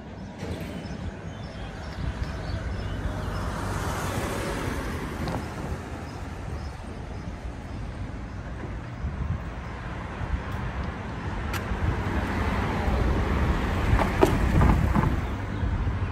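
Road traffic: a passing car swells and fades about four seconds in, and another vehicle grows louder toward the end, over a steady low rumble.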